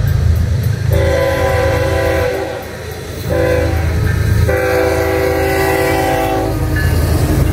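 Horn of an Iowa Interstate GE ES44AC diesel locomotive sounding three loud blasts, long, short and long, as the train approaches the grade crossing.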